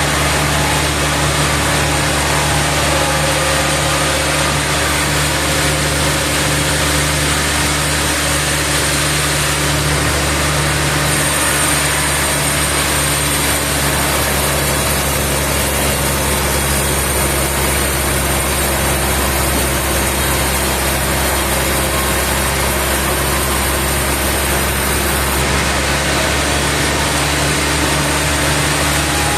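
Sawmill machinery running steadily with an engine-like hum. A higher hiss joins about eleven seconds in and drops away again near the end.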